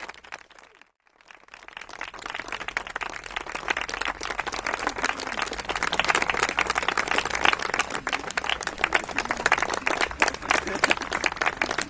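Audience applauding, a dense patter of many hands clapping. It drops out briefly about a second in, then comes back and builds to a full, steady round.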